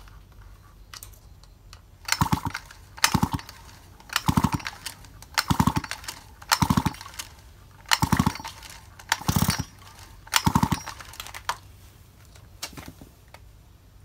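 Shindaiwa two-stroke chainsaw's recoil starter pulled about eight times in a steady rhythm, about one pull a second. Each pull whirs the engine over briefly, and it does not fire. This is cranking to check whether the ignition makes a spark.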